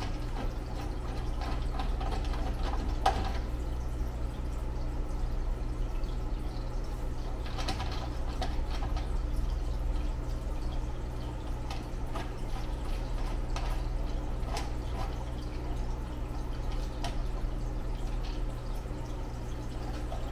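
Faint scattered clicks and rubbing as fingers handle a speaker wire and turn a receiver's plastic speaker binding post, over a steady low background hum.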